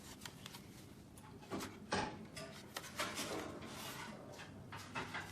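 Handling noises from an aluminum laptop stand being turned over and examined by hand: a few short knocks and rubbing scrapes, the loudest about two seconds in.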